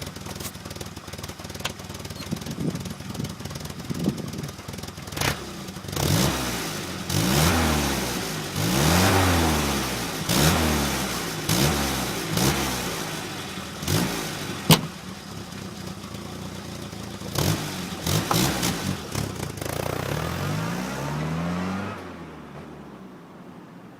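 Vehicle engine exhaust through a 'gyoza' muffler, idling, then revved in a series of short blips that rise and fall in pitch, with a sharp crack about two-thirds of the way in. Near the end it settles back to a quieter idle.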